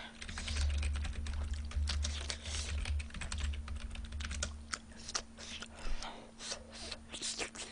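Rapid, irregular clicking of typing on a computer keyboard, over the softer sounds of chewing with a full mouth.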